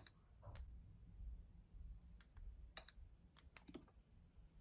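Near silence with faint, scattered clicks and taps, about a dozen in all: smartphones being handled during a face-unlock test.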